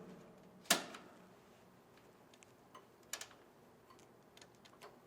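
Sharp mechanical clicks as power is switched back on to a variable frequency drive: one loud click just under a second in, then a quick pair of fainter clicks about three seconds in and a few light ticks.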